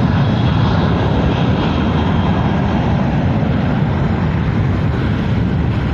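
Steady jet airliner engine noise on an airport apron, a loud, even rush heaviest in the low range.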